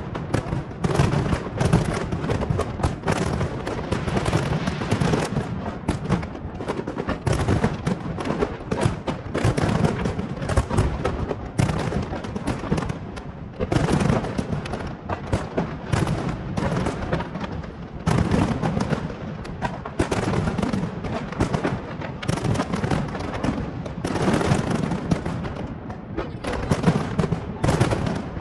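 Fireworks display: a dense, continuous barrage of bangs and crackles with deep booms underneath, never pausing.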